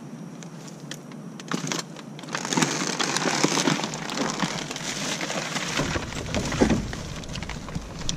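Rummaging by hand through dumpster trash: plastic bags and packaging rustling and crinkling, with scattered light knocks as items are shifted. It gets louder about two and a half seconds in.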